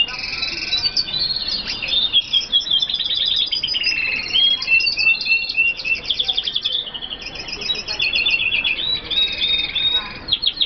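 Red siskins singing: fast twittering trills and buzzy rattles, with more than one song line overlapping at times. The song stops abruptly at the very end.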